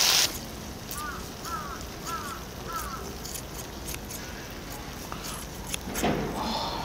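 Soft sizzling of pork on a cauldron-lid griddle, with light clicks of kitchen scissors and tongs cutting the meat. A bird chirps four times, about half a second apart, starting about a second in.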